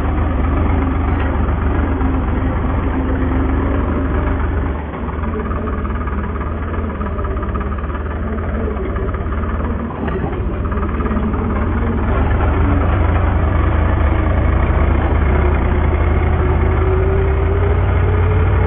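New Holland tractor's diesel engine running steadily while the tractor drives. Its level dips briefly about five and ten seconds in and steps up from about twelve seconds, and the pitch rises a little near the end.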